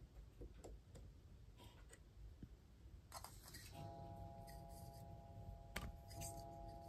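Near silence, with faint scattered clicks and taps of metal tweezers handling rigging thread against a plastic ship model, the sharpest tick near six seconds in. A faint steady tone comes in about four seconds in.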